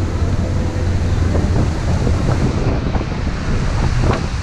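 Wind buffeting the camera microphone on the open deck of a cruise ship under way: a loud, steady low rumble.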